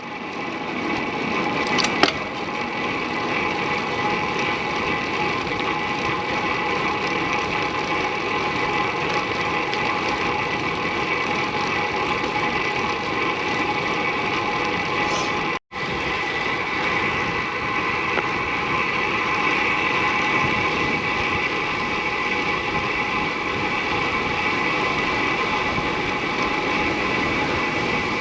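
Disc brakes of a RIDLEY Fenix SLiC road bike making their abnormal noise while riding: a steady rushing sound with a constant high ringing tone over it. A short cut to silence comes about halfway through.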